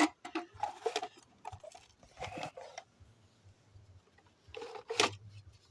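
Scattered clicks, knocks and short rustles from a 120-volt lithium mower battery and its charger being handled, with the sharpest click about five seconds in.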